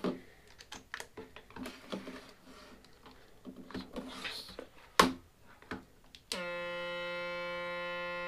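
Handling clicks and knocks as a patch cable is connected, with one loud pop about five seconds in; about six seconds in, a homemade Synthrotek NAND Synth board built into a Mr Potato Head toy comes on through a small amplifier with a steady, buzzy held tone.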